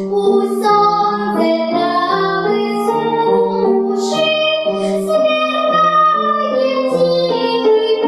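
A young girl singing a song in Russian, holding clear sung notes, accompanied by an upright piano.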